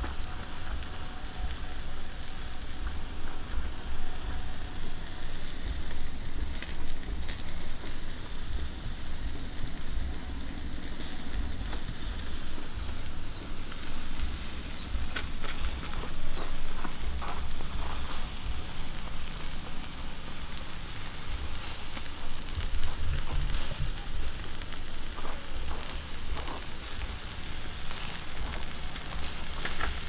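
Whole fish sizzling steadily on a wire grill over a wood charcoal fire as basting sauce is brushed onto them, with scattered sharp crackles from the fire.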